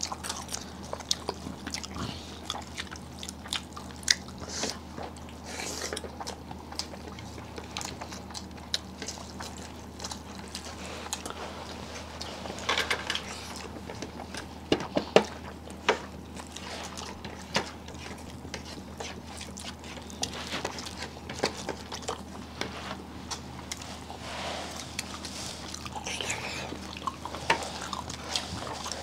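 People chewing and biting food, with scattered short smacks and clicks of eating, over a steady low hum.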